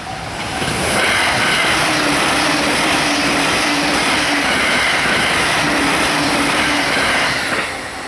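JR East E657 series electric limited express passing at high speed: a loud steady rush of wheels on rail and air, building about half a second in and cutting off sharply near the end. A level-crossing warning bell rings in a steady on-off rhythm before and after the train.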